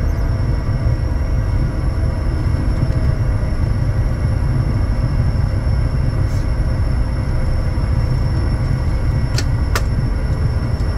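Steady cockpit noise of a Bombardier Challenger 350 business jet, its Honeywell HTF7350 turbofans and airflow making a deep, even rumble with a thin high whine over it. Two faint clicks come near the end.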